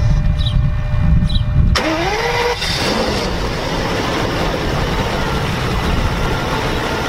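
Car engine: a rough low rumble, then a sudden change about two seconds in, with a pitch rising over most of a second as it revs up, and a steady loud rush after that.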